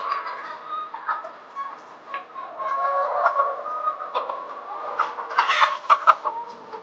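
A flock of layer hens clucking, many short calls overlapping. A cluster of sharp clicks or knocks comes about five to six seconds in.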